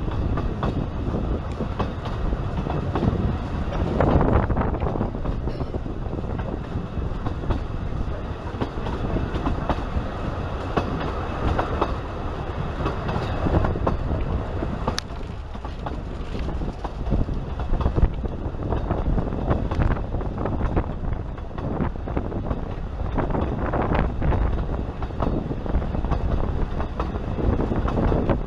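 Narrow-gauge passenger train running along the track, heard from an open carriage window: a steady rumble with the wheels clicking over the rails throughout.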